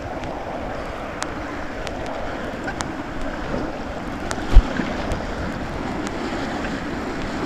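Rushing white-water river around a kayak: a steady, noisy rush of fast water. A few sharp ticks sound through it, and there is one dull thump about four and a half seconds in.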